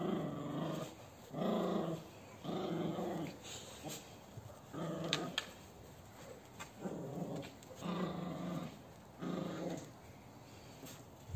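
Dog growling in short bursts, about seven of them roughly a second apart, during a rope tug-of-war between a Cane Corso and a small Maltese puppy: playful tug growls.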